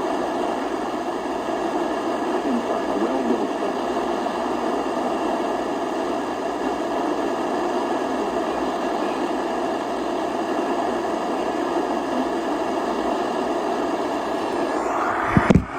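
Steady hiss of radio static from a receiver with a weak signal. About fifteen seconds in, a sharp click, a short thump and a brief dropout break the hiss.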